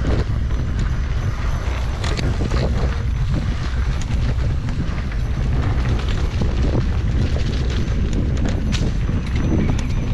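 Heavy wind rumble on the microphone of a moving rider, with scattered rattles and clatter from a mountain bike rolling fast down a dirt trail.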